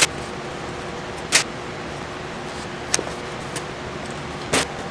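Handling noise from reworking the vinyl covering on a fiberglass dashboard panel: about five short scrapes and clicks as hands and a thin tool work the vinyl, over a steady background hum.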